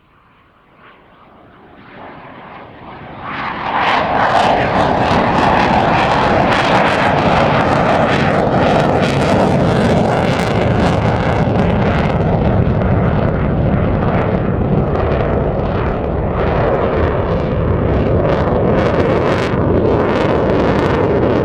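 Fighter jet engine on afterburner, swelling from faint to very loud over the first four seconds, then running loud and steady with a continuous crackle.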